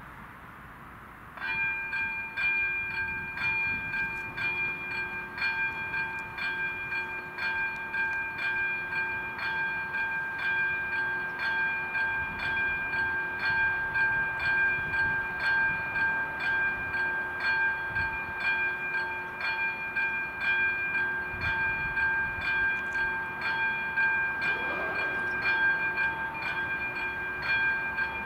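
Electric warning bell of an AŽD 97 level-crossing signal starts about a second in and rings steadily, struck a little under two times a second, with its tone ringing on between strikes. It is the crossing's warning that a train is approaching and the barriers are about to close.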